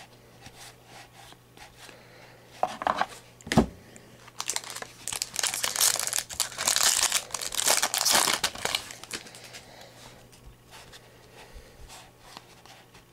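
Trading cards slid against each other by hand, then a thump about three and a half seconds in. A foil card-pack wrapper follows, crinkling and tearing open for about five seconds, then quieter card handling.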